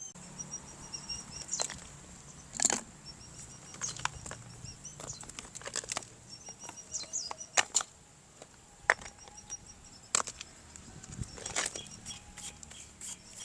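Irregular sharp clicks and rustles, some louder than others, over a faint, evenly pulsed high chirping and a low hum.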